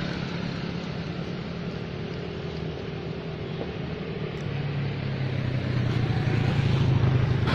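A motor vehicle's engine running with a steady low hum, getting louder over the last few seconds.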